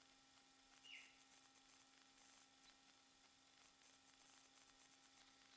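Near silence: faint steady hum and hiss, with one short, high, falling chirp about a second in.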